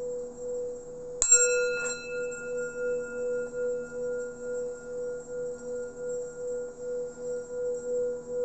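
Singing bowl ringing with a steady, wavering hum. About a second in it is struck, adding a bright ring of higher overtones that slowly fades.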